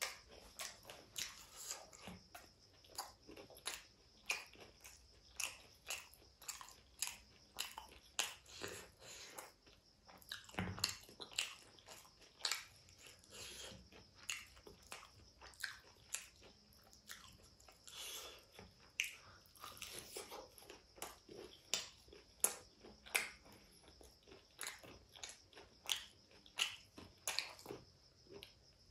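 Close-miked chewing and biting of crispy fried chicken, with crunches and wet mouth clicks coming irregularly about once or twice a second.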